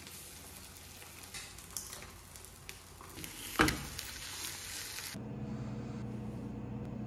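Eggs frying in a pan, sizzling with small crackles, with one sharp knock about three and a half seconds in. About five seconds in the sizzle cuts off to a steady low hum.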